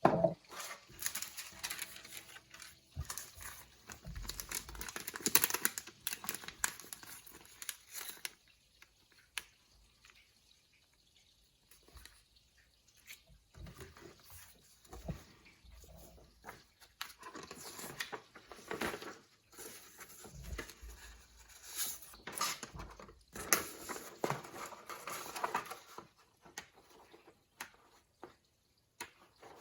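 Rustling, crinkling and light clicking as plastic model-kit parts and their packaging are handled, in irregular bursts with a quiet stretch about ten seconds in.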